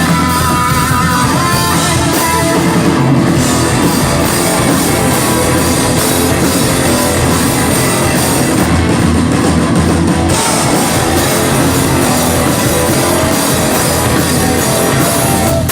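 Rock band playing loudly on stage, with guitars and a drum kit together in a dense, steady wall of sound.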